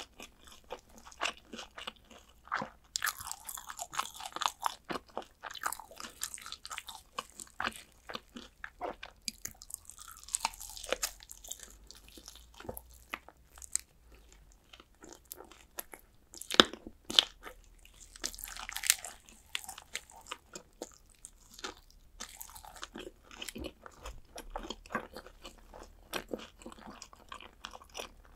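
Fried chicken drumsticks being bitten and chewed up close, the crisp crust crunching. The crunching comes in several dense spells a few seconds apart, with a few sharp louder bites about two-thirds of the way through and chewing in between.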